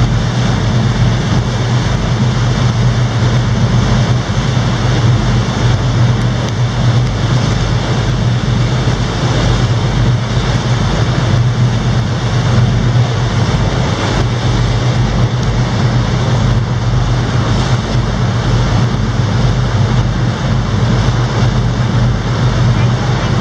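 Tour boat's engine running steadily with a low hum, under a constant rush of water and wind.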